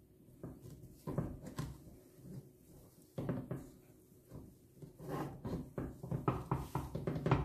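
Hand kneading a stiff semolina dough in a small steel saucepan: irregular soft thumps and knocks, coming faster from about five seconds in.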